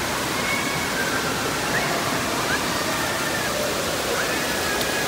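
Steady rush of water flowing across a shallow pool ramp, with faint distant voices over it.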